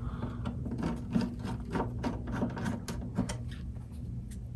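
Small screwdriver turning pickup mounting screws on an Epiphone Emperor hollow-body guitar: a run of light, irregular clicks and scrapes that thin out near the end.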